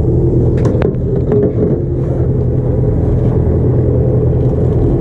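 A small boat's motor running steadily, with a few light clicks in the first second and a half.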